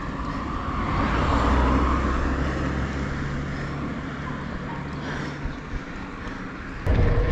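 A motor vehicle passing on the road, its low engine hum and tyre noise swelling and then fading. Near the end, wind suddenly starts buffeting the microphone.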